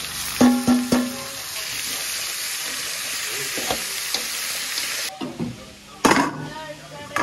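Pork frying and sizzling in oil in a pan, with a metal utensil striking and scraping the pan in ringing clinks while stirring. The sizzle drops off sharply about five seconds in, and a loud knock follows about a second later.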